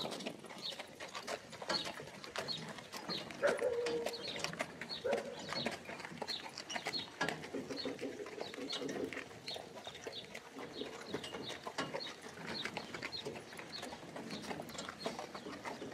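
Hooves of a two-horse carriage team clip-clopping at a walk on a dirt street, with scattered knocks from the carriage. A short high squeak repeats about twice a second throughout.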